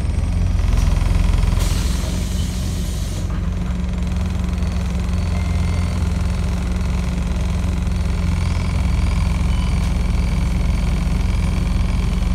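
Scania N270UD Omnidekka double-decker bus's diesel engine running under way, a steady low rumble heard from inside on the upper deck. About two seconds in, a burst of hiss lasts about a second and a half.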